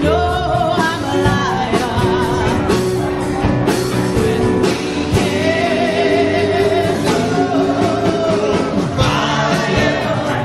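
Live rock band playing, with a woman singing lead in long held notes with vibrato over electric and acoustic guitars, drums and keyboard.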